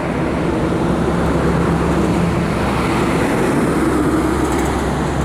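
Steady rumble of passing motor traffic, with a held engine hum running through it and rising slightly about halfway through.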